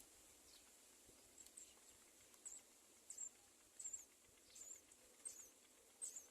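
Faint, thin, high-pitched squeaks repeating about every 0.7 seconds from about a second and a half in: a myna nestling's begging calls.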